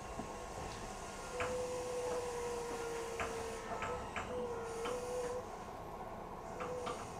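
Interior of a stopped Nagano Dentetsu 3500 series train car at a station: a steady electrical hum with scattered clicks and ticks, and a faint thin tone that sounds for a couple of seconds about a second and a half in, then again more briefly twice.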